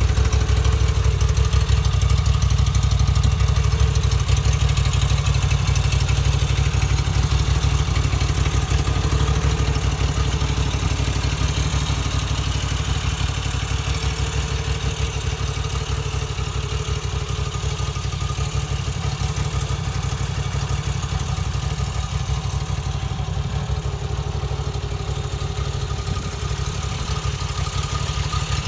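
Moto Guzzi V85 TT's 853 cc air-cooled transverse V-twin idling steadily.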